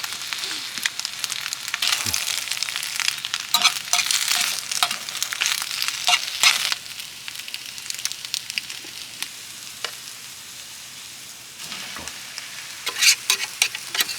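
Food sizzling and spattering in a hot pan, with dense crackling that eases off about halfway through and grows loud again near the end.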